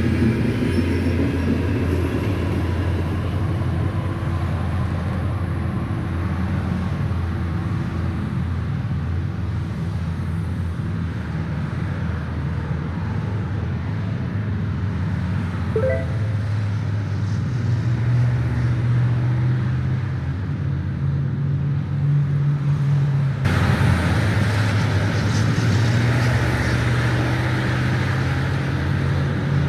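Diesel locomotive engine running steadily with a low hum; its pitch steps up about two thirds of the way through, and the sound grows louder and noisier near the end, as when a train throttles up to move off.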